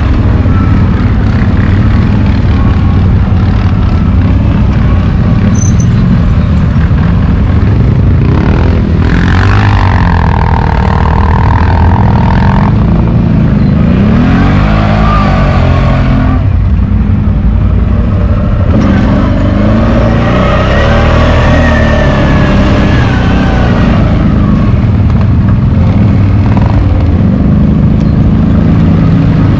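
CFMoto X8 ATV's V-twin engine running under way on a forest trail, its pitch rising and falling with the throttle.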